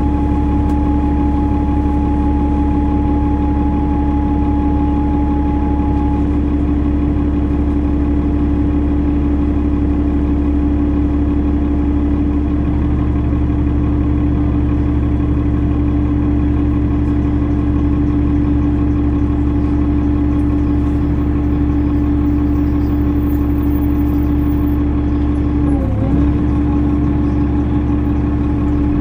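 A 2005 New Flyer D40LF city bus's Cummins ISL 8.9-litre turbocharged inline-six diesel runs steadily, with a strong steady tone over the engine noise. A deeper tone joins a little before halfway, and there is a brief wobble in pitch near the end.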